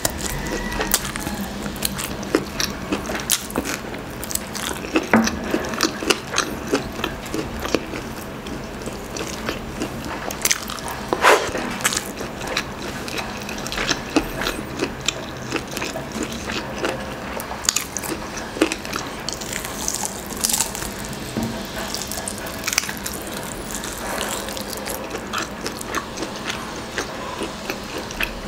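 Close-up chewing and biting of grilled chicken inasal: a dense, irregular run of sharp clicks, crackles and smacks from teeth and mouth on charred chicken meat and skin.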